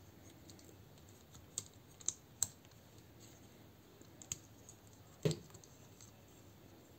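Small plastic transforming robot figure, a Zeta Toys Mini Superitron component, clicking as its parts are folded and pegged together by hand: about five light clicks, the loudest about five seconds in.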